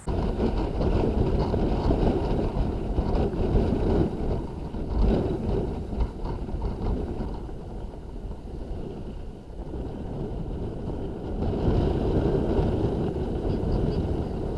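Wind and road noise from a Wacco X10 electric scooter ridden at about 40 km/h in city traffic, heard on a camera mounted on the handlebars. It is a steady rushing rumble with no engine note, as the scooter's side-mounted hub motor runs quietly.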